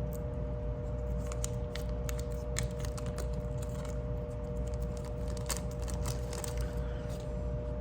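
Light clicks and taps of small metal parts of a folding knife being handled and worked apart, scattered irregularly, over a steady background hum.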